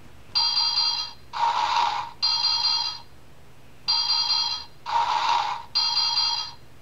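Electronic sound chip of a children's play-a-sound book playing a short sound effect through its tiny speaker: three ringing electronic tones, the middle one buzzier, then the same three tones again after a brief pause.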